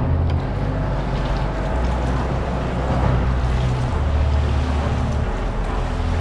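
Boat motor running steadily, with wind noise on the microphone.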